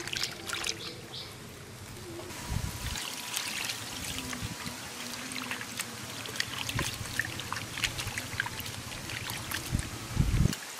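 Gutted climbing perch being washed by hand in water in a clay bowl: water sloshing and trickling, with wet rubbing and many small splashes as the fish are turned and squeezed. A dull thump comes near the end.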